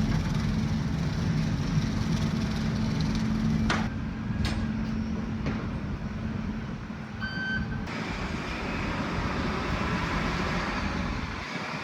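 Steady engine hum with a few sharp clicks, then a short electronic beep about seven seconds in.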